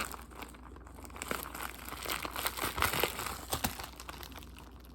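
Crinkling plastic and scattered light clicks as a large conjoined 3x3 puzzle cube is handled.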